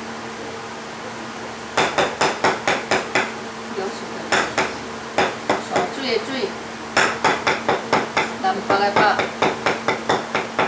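A wooden spirit-writing stylus knocks on a hard tabletop in quick runs of sharp knocks, about five a second, with short pauses between the runs. The knocking is the medium tapping out characters during a spirit-writing session.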